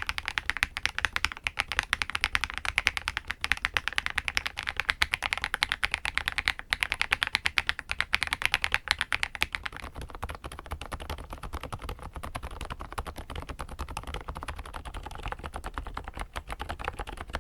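Fast, continuous typing on an FL-Esports X80 mechanical keyboard, a dense patter of keystrokes. About ten seconds in, the typing turns quieter and duller, with less click in the treble.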